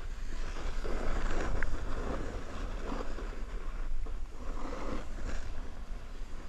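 Snowboard sliding and carving on packed snow: a scraping hiss that swells and fades with each turn, over a low wind rumble on the camera's microphone.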